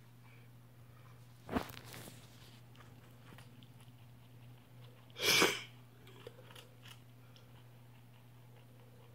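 Rabbit chewing and crunching on fruit, in small faint crunches, with two louder sudden noises about one and a half and five seconds in. A faint steady hum lies underneath.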